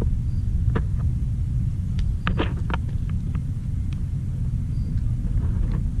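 A steady low rumble with a few light clicks and taps, the strongest a little over two seconds in.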